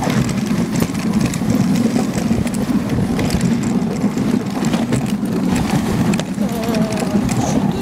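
Dog sled gliding over a packed snow trail: a steady low rumble of the runners on snow, with scattered knocks and rattles from the sled.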